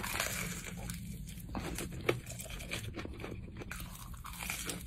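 A person biting into and chewing crunchy fried food coated in hot sauce, close to the microphone: a run of sharp crunches, one louder about two seconds in.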